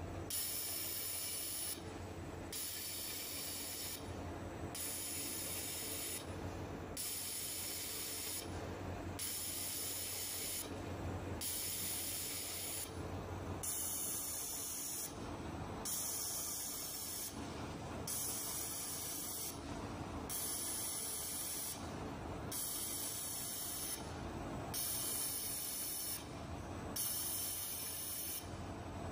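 Automatic fiber laser welding of a stainless-steel pillow plate: a steady hiss from the weld that breaks off briefly about every two seconds between welds, over a low steady machine hum.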